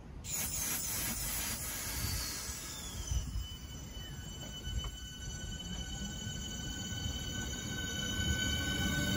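Class 465 Networker electric multiple unit moving off from the platform: a high whine glides down over the first few seconds and then settles into several steady high tones over a low rumble.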